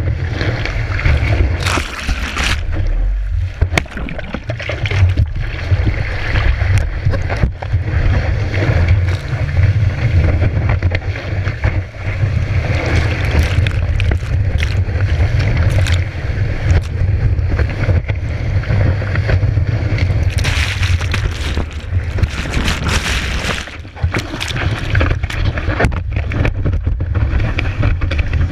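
Wind buffeting the microphone of a surfboard-mounted camera, with water rushing and spray hissing along the board as it rides waves; the hiss surges louder now and then.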